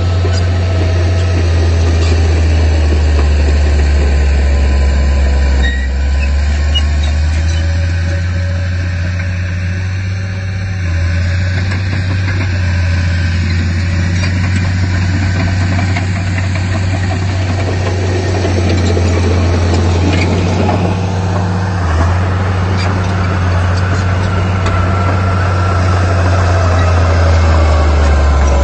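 Heavy diesel earthmoving machinery running: a loud, deep, steady engine drone with small shifts in engine speed now and then.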